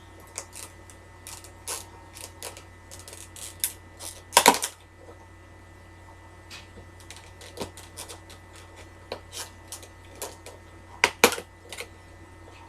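Irregular clicking and tapping of a Motorola EM326g slider phone's plastic casing as fingers work at prying it open, with two louder snaps about four and a half seconds in and near the end.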